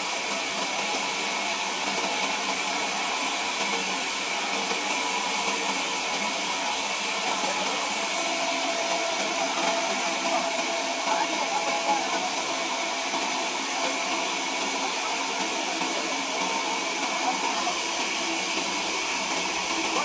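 Sawmill machinery running with a steady, continuous whir.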